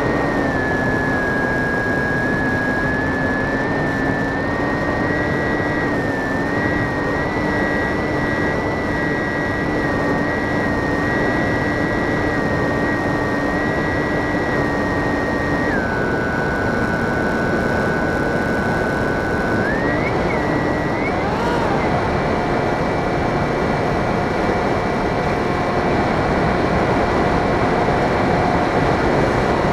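RC plane's motor and propeller running steadily in flight, a whine over a constant rush of air. The whine drops in pitch about sixteen seconds in, then rises around twenty seconds and holds steady.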